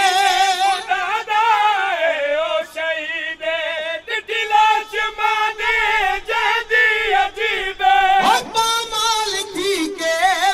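Men singing a noha unaccompanied: a lead reciter's long, wavering lines through a microphone, with a group of men joining in chorus. About eight seconds in, one voice sweeps sharply up in pitch.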